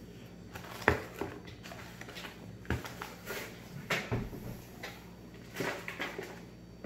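Chunks of dry starch being bitten and chewed close to the microphone: irregular crunches and squeaks, the sharpest about a second in.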